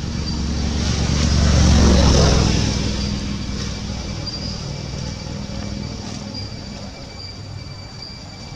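A motor vehicle passing by: a low engine and road rumble swells to its loudest about two seconds in, then slowly fades away.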